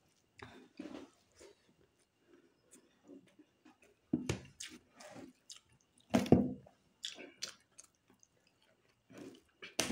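Close-up wet eating sounds: fingers squishing and mixing rice with curry on a steel plate, and a mouthful being chewed with lip smacks. The sounds are short, scattered clicks and squelches, three of them much louder than the rest.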